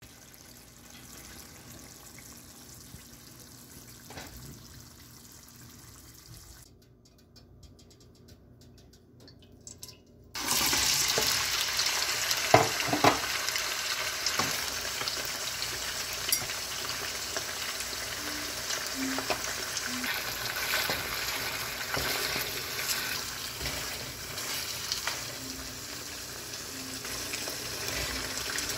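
After a faint start, a loud steady sizzle begins suddenly about ten seconds in: pieces of mutton frying in hot oil in a karahi. A few sharp knocks come shortly after it starts.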